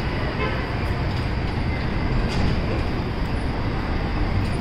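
Nova Bus LFS hybrid-electric city bus idling at a stop, a steady low rumble blended with city street traffic noise.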